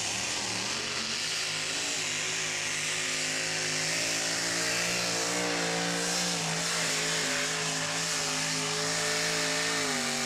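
Two-wheel-drive pulling truck's engine running flat out under full load as it drags a weight-transfer sled, a loud, steady, high-revving note that eases slightly near the end.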